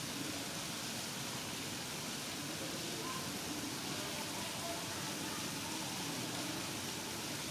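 Steady rain falling, an even hiss of water with no letup.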